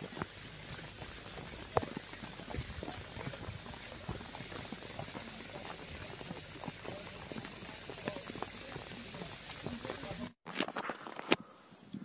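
Outdoor ambience in wet, snowy weather: a steady hiss with many scattered small crackles and taps. It cuts off abruptly near the end, followed by a few clicks and a quieter stretch.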